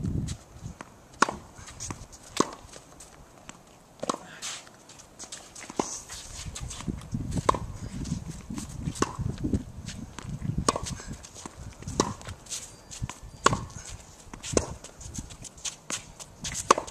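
Tennis rally on a hard court: sharp pops of racket strings hitting the ball, mixed with ball bounces, about one every second or so, with footsteps on the court.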